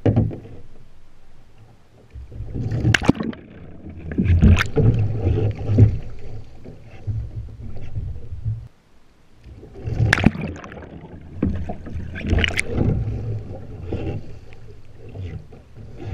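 Water splashing and sloshing around a sea kayak as the wooden Greenland paddle works the water, with a low rumble of water against the hull and several sharp splashes, the loudest about three, four and a half, ten and twelve seconds in.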